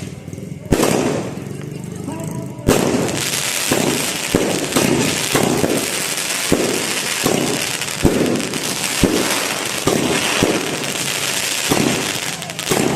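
Fireworks going off: a string of sharp bangs, roughly one or two a second, over a steady hissing crackle.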